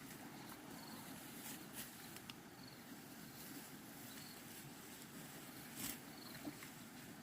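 Faint outdoor ambience: a low steady hiss with a few soft clicks and faint short high chirps now and then.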